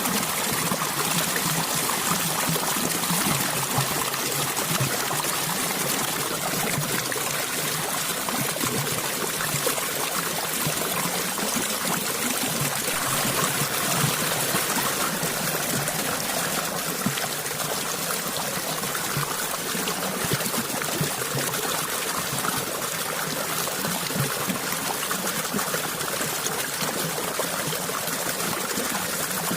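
Water trickling and flowing steadily over stones in a small stream, an even unbroken burble.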